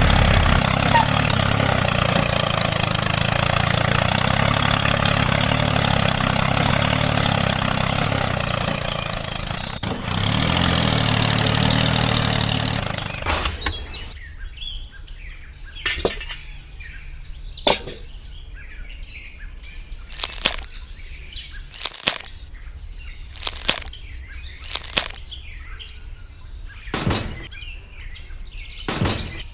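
A motor runs steadily, then stops about 13 seconds in. After that come sharp taps every second or two, with birds chirping faintly.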